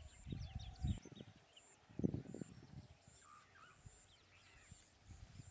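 Asian elephant dust-bathing: dull whooshing thuds of dirt thrown with its trunk, a cluster about half a second in and another around two seconds in. Birds chirp in the background throughout.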